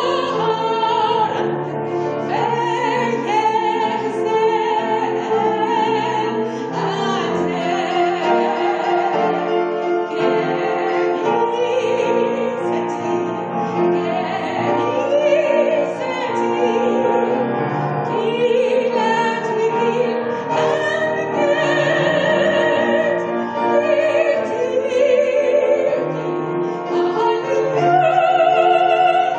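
A woman singing a song in Arabic into a microphone, her voice with a wide vibrato, over an instrumental accompaniment of held chords.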